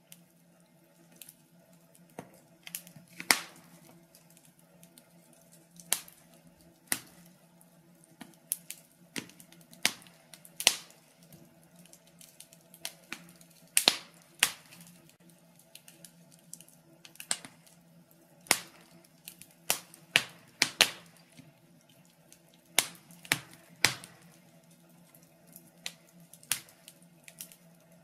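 Wood fire crackling, with sharp irregular pops, over a steady low hum.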